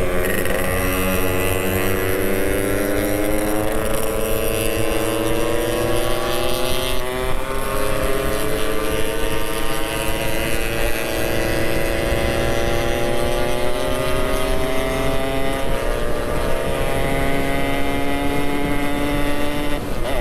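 Yamaha RX-King's two-stroke single-cylinder engine running under way, its note climbing slowly as the bike gains speed. About three-quarters in the note dips briefly, then it holds steady.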